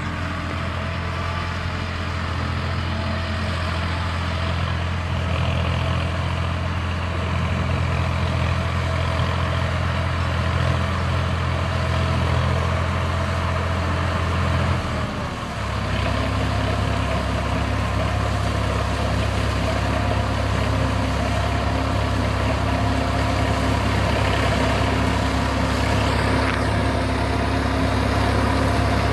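Solis Yanmar 50 hp tractor's diesel engine running steadily under load while working a PTO-driven cutter through sugarcane trash. About halfway through, the level dips briefly and the engine's note changes, then it runs steady again, growing a little louder as the tractor comes closer.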